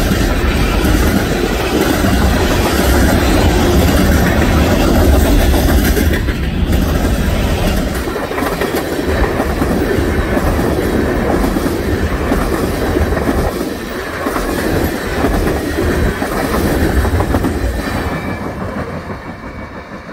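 Freight train's tank cars rolling past close by, the wheels clattering over the rail joints in a steady rumble. The sound fades over the last couple of seconds as the cars draw away.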